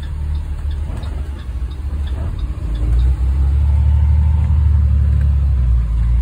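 School bus engine running, heard from inside the passenger cabin as a steady low drone that grows louder about three seconds in. A faint regular ticking, about three a second, sounds over the first few seconds.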